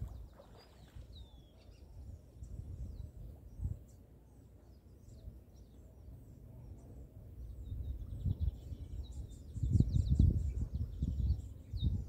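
Outdoor ambience of wind buffeting the microphone in gusts, growing much stronger in the last few seconds, with many short, high bird chirps throughout.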